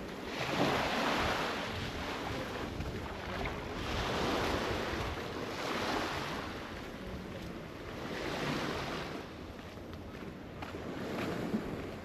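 Sea waves washing in, a rushing surge that swells and fades about every four seconds, with wind buffeting the microphone.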